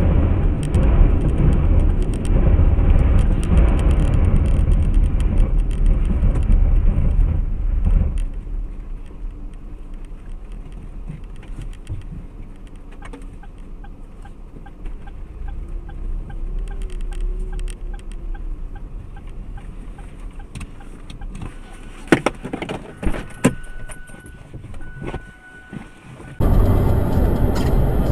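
Car interior road and engine noise picked up by a dashboard camera, loud for the first several seconds, then quieter after a cut. The quieter stretch has a regular ticking lasting several seconds and a few sharp knocks, and loud road noise returns after another cut near the end.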